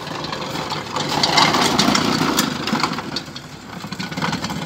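Small petrol engine of a walk-behind rotary lawn mower running steadily on a test run after a new blade and blade washer were fitted. It gets louder about a second in and eases off after about three seconds.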